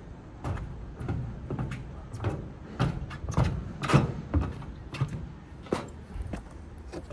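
A dozen or so irregular knocks and clatters from work on tin roofing, the loudest about four seconds in.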